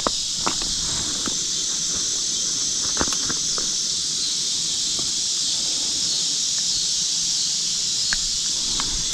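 Steady chorus of evening insects, a continuous high-pitched buzzing drone, with a few faint clicks and knocks of handling now and then.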